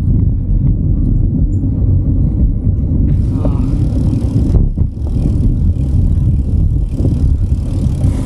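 Wind rumbling on the microphone of a camera riding on a moving bicycle, with road noise underneath. A higher hiss joins about three seconds in.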